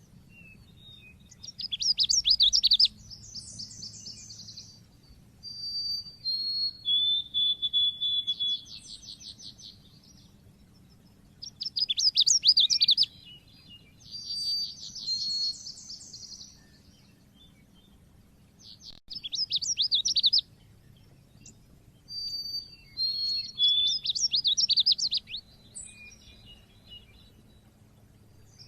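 Pleci (white-eye) of the 'cit keres' type singing: repeated bursts of fast, high chirping trills mixed with short clear whistled notes, in phrases one to three seconds long with pauses between.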